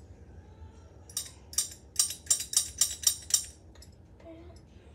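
Chrome desk bell's striker worked from underneath in a quick run of about ten short metallic clicks, roughly four a second, that barely ring on.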